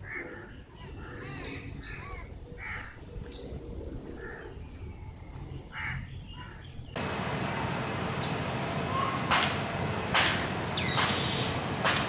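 Outdoor ambience with birds calling: short, harsh calls over a quiet background in the first half. About seven seconds in, the sound changes abruptly to a louder, steady hiss with a few sharp clicks and brief whistled chirps.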